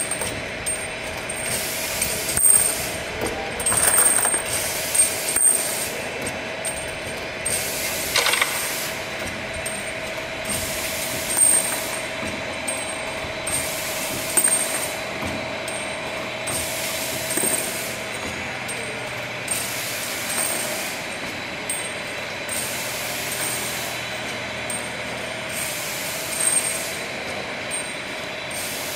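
Automatic preprocessor machine cycling: bursts of air hiss from its pneumatic cylinders every second or two, with sharp metal clacks, over a steady hum of running machinery.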